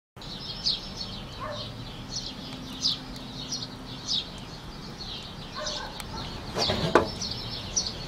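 Birds chirping: short, high calls repeating every half second to a second, with a few lower notes among them.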